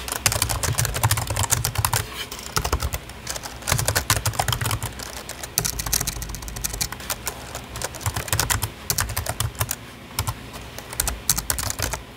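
Typing on a computer keyboard: a fast, continuous run of key clicks with short uneven pauses, the keystrokes landing with a soft low thud.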